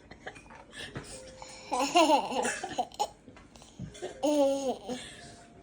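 A toddler's high-pitched laughing and babbling in two short bursts, about two seconds in and again past four seconds.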